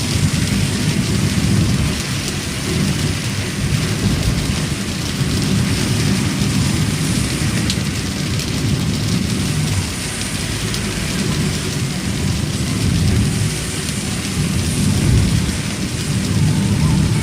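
Heavy rain drumming on a car's roof and windscreen, heard from inside the car, as a dense steady hiss over a deep low rumble.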